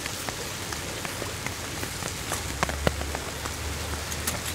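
Rain pattering steadily on a silnylon rain-poncho tarp, with scattered sharp ticks of single drops.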